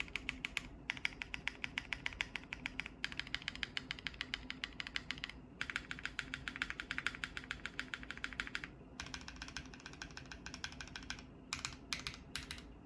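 Bakeneko60 custom mechanical keyboard with lubed Ashkeebs Auralite switches on an FR4 plate and Cannonkeys Winter Tundra keycaps, typed on quickly in runs of several seconds with short pauses between them. Near the end come a few separate, spaced keystrokes.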